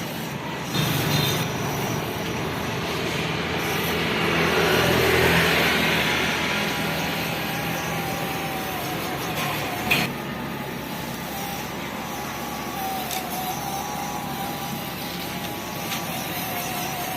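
Small electric motor and gearbox of a homemade 1/16-scale 4x4 RC truck whining as it drives, with a wavering pitch; the noise swells about five seconds in, and there is a sharp click near ten seconds.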